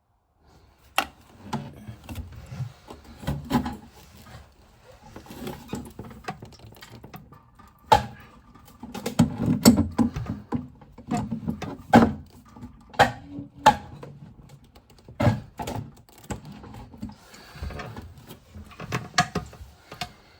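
Irregular knocks, clicks and clatter of hard parts being handled at close range, with a few sharper knocks standing out above a low rumbling of movement.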